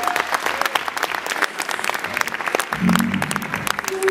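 Audience applauding, dense irregular clapping that thins out toward the end, with a short low pitched sound through the microphone about three seconds in.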